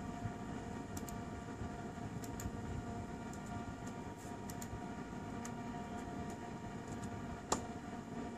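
Scattered clicks of a laptop's keys and touchpad buttons, about a dozen, the sharpest one about seven and a half seconds in, over a steady machine hum with faint steady tones.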